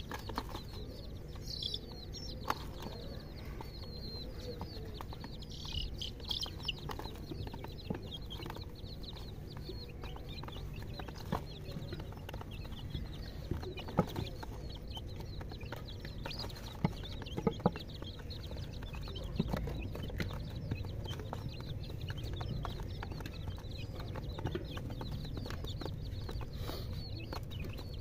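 Young chicks peeping now and then as they feed, with short high chirps and scattered sharp taps over a low steady hum.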